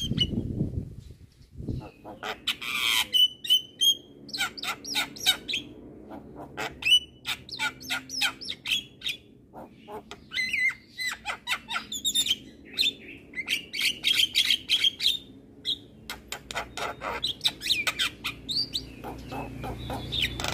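Javan myna singing a long, busy song: rapid chattering clicks mixed with harsh squawks and short whistled notes.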